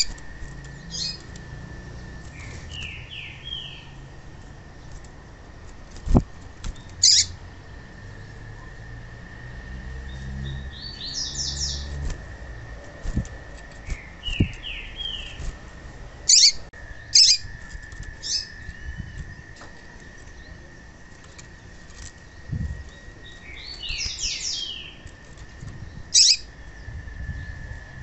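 Female papa-capim (yellow-bellied seedeater) calling: sharp, high single chip notes scattered through, and four quick runs of short falling notes. A steady high-pitched hum runs underneath, and a brief flutter of wings comes at the start.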